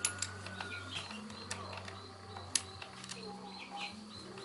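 Scattered light metallic clicks of a chuck key turning in the keyed chuck of a Bosch GSB 550 impact drill as a screwdriver bit is clamped in. Birds chirp faintly in the background, over a low steady hum.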